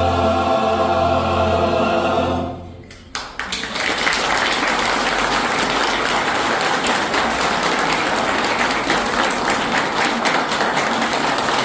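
A choir holds the final chord of a Christmas song and releases it about two and a half seconds in. After a brief pause, audience applause starts and continues.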